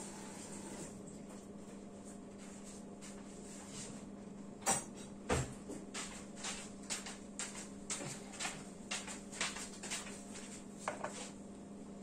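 Light clicks and knocks of kitchen work with knives, bowls and fruit, about two a second from about five seconds in, over a steady low hum.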